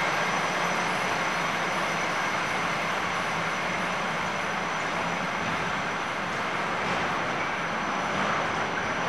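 Vienna ULF low-floor tram pulling out of an underground station and running off down the tunnel. Its faint motor tones fade over the first few seconds, under a steady running noise.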